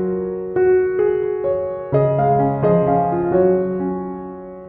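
Background piano music: notes and chords struck a few at a time, each left to ring and fade before the next.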